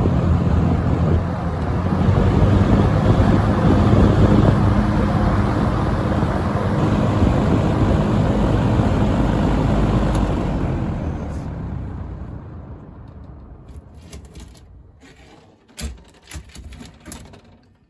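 Early-1970s Windsor (Lakewood P-21) box fan running steadily on low speed, its motor humming under the rush of air from the blade. About ten seconds in the sound starts to die away and fades over several seconds as the fan is switched off and coasts down, with a few faint clicks near the end.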